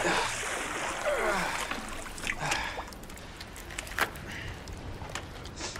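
Pool water splashing and running off as a swimmer climbs out of the pool, loudest in the first couple of seconds. After that the splashing settles into quieter dripping with a few short knocks.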